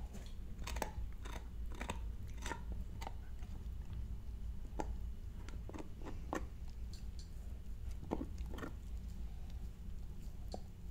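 Dog gnawing on a hard chew bone: irregular cracks and crunches, coming thick and fast in the first few seconds, then more spaced out.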